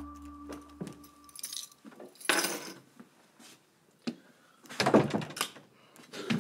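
Keys jangling and rattling in a door lock, then a door being opened, with louder bumps about two seconds in and again around five seconds in.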